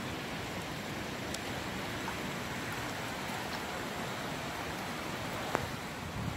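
Steady rushing outdoor ambience of lapping lake water and light wind, with a single sharp click about five and a half seconds in.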